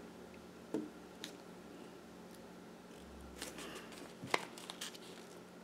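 A pen drawing on folded printer paper, with the paper shifted by hand: a few faint scratches and small clicks, the loudest about four seconds in, over a low steady hum.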